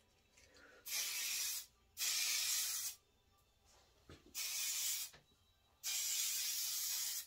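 Kenra Platinum aerosol hairspray sprayed onto hair in four short bursts of hiss, each under a second and a half, with brief pauses between.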